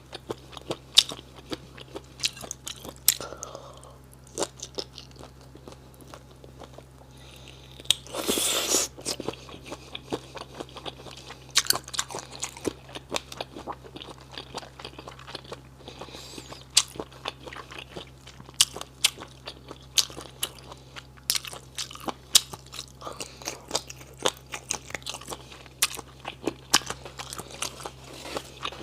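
Close-up chewing and biting of octopus beaks (zhangyu zhu, the chewy mouth parts of octopus), with many sharp crunches and clicks at an uneven pace. A louder, longer noisy burst comes about eight seconds in.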